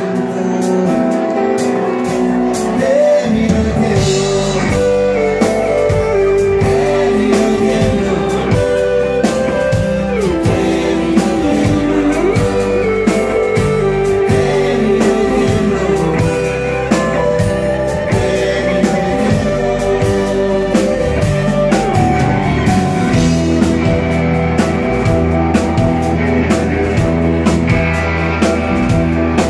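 Live rock band playing loudly through a club PA: electric guitar over acoustic guitar, with a voice singing at times. The bass comes in about three seconds in.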